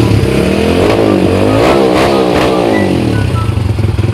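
Small tuned motorcycle engine (big valves, 28 mm carburettor) breathing through an open aftermarket 'chapa' exhaust, revved up and down several times in a sound check.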